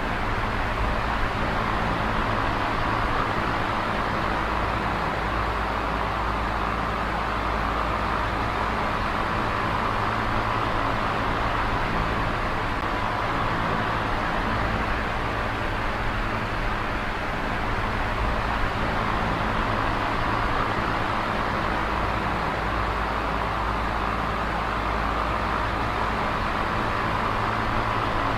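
Small electric oscillating fan running steadily: an even whoosh of moving air over a low motor hum, the airy part swelling and easing slowly as the fan sweeps back and forth.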